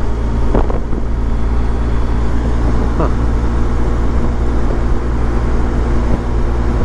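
BMW motorcycle cruising steadily in sixth gear at about 60 mph: a constant low engine drone under wind and road noise, heard from the rider's seat.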